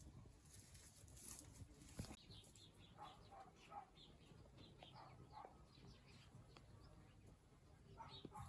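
Near silence with many faint, short chirping animal calls from about two seconds in.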